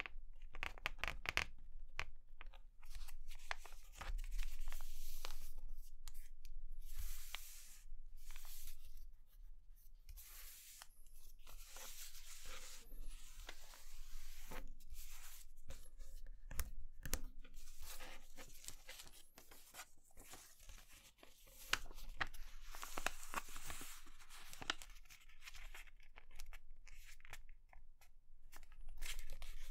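A sheet of paper being folded into a paper airplane: dry crinkling and scraping in irregular spurts as creases are pressed flat and run down with the fingers, with short pauses between folds.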